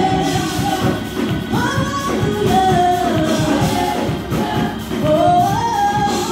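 Gospel praise team singing live into microphones over a band with drums, a woman's voice leading with long held notes that slide up and down in pitch.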